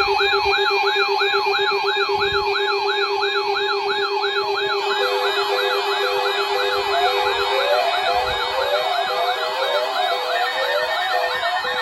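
Several weather alert radio receivers sounding their alarms together, set off by the weather radio station's weekly test tone alert. Fast warbling siren sweeps come about three a second over a steady, pulsing low tone. About five seconds in, another alarm joins with slower up-and-down sweeps and short beeps.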